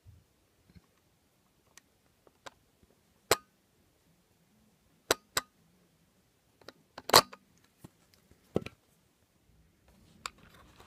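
Scattered small clicks and scrapes of a screwdriver turning out the tiny screw on a TI-83 Plus calculator's plastic backup-battery cover, with one louder scrape about seven seconds in.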